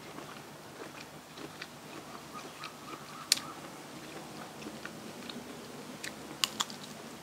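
Close-miked eating: biting and chewing with small scattered clicks, a sharp click about three seconds in and two more close together near the end.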